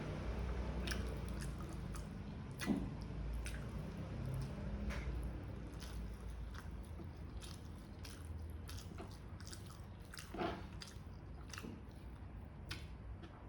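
Close-up chewing of a mouthful of spicy adobo chicken livers and gizzards, with many short wet mouth clicks and two louder bites or smacks, about three seconds in and about ten seconds in.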